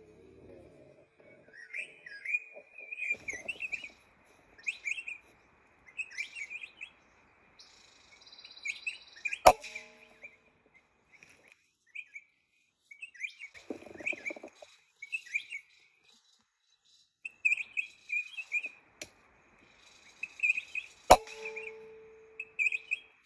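Wild birds chirping and calling in the forest canopy, over and over. A PCP air rifle fires twice with a sharp crack, about ten seconds in and again near the end, each shot followed by a brief ringing tone.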